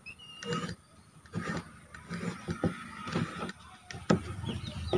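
Irregular hard plastic knocks and clicks as PVC toy-gun parts, the adapter and the chassis, are handled and pushed together, with about five separate knocks.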